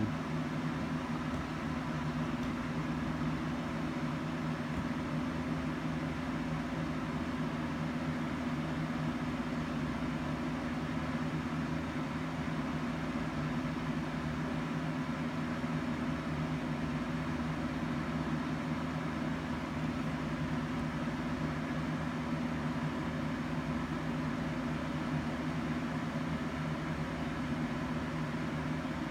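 Steady mechanical hum: a low two-tone drone with a faint hiss over it, unchanging.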